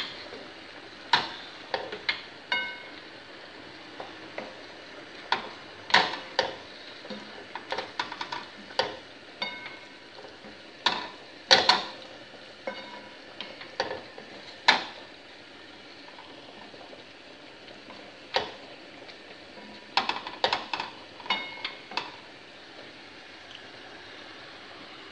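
Sauce sizzling in a frying pan while a spoon stirs it, with irregular knocks of the spoon against the pan, some ringing briefly. The knocks stop for a few seconds twice, leaving only the sizzle.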